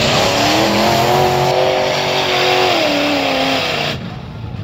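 Lifted mud-bog pickup's engine revving hard as it drives through the mud pit, the pitch climbing in the first second, holding, then dropping away, with a loud rush of mud and water thrown up by the tyres that stops abruptly about four seconds in.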